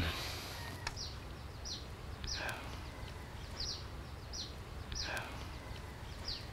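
Birds calling: short high chirps that drop in pitch, repeating every second or so, with a lower falling call about two and a half seconds in and again about five seconds in, over faint outdoor background noise.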